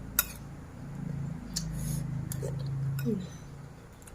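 A person eating: a low hummed 'mm' in the throat while chewing, with a few short sharp clicks of a spoon or teeth against the dish.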